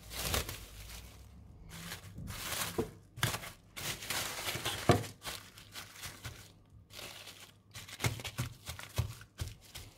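Plastic cling film crinkling and rustling in irregular crackles as it is pulled, stretched over a metal bowl and pressed down around the rim, with one sharp knock about halfway through.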